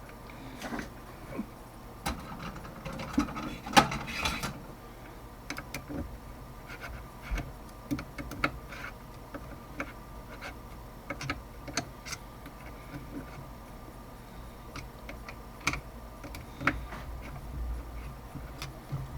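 Irregular clicks and light knocks of hand tools and small metal parts being handled at a workbench, the loudest about four seconds in, over a faint steady hum.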